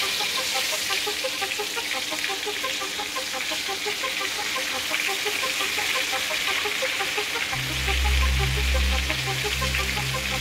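Tilapia frying in hot oil in a pan on a gas stove: a steady sizzle, with light background music under it. A low rumble joins about three-quarters of the way through.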